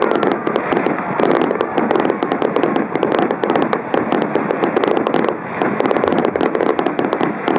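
Fireworks display: a dense, continuous crackle of many small pops going off in quick irregular succession.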